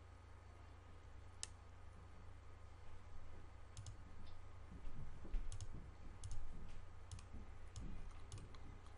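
Computer mouse clicking: about ten single clicks, more frequent in the second half, over a steady low hum.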